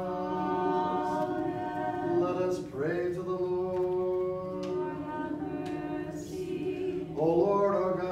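Small a cappella church choir singing a slow Orthodox liturgical response in long held chords, in three drawn-out phrases.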